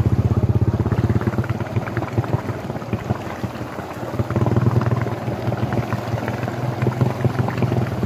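Two-wheel hand tractor's single-cylinder diesel engine chugging steadily as it wades through floodwater, with water sloshing around it. The engine dips a little in the middle and picks up again about four and a half seconds in.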